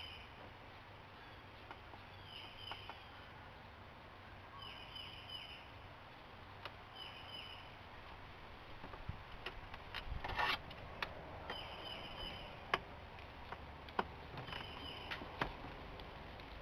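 Faint handling noise from working by hand under a car's dashboard: scattered small clicks and knocks, a short scraping rustle about ten seconds in, and a few sharp clicks after it. A bird chirps a short falling call every two to three seconds throughout.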